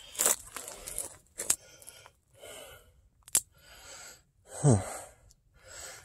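Heavy, rhythmic breathing of someone forcing a way through thick dry brush, with a couple of sharp snaps about one and a half and three and a half seconds in. A short, loud grunt drops in pitch near the end.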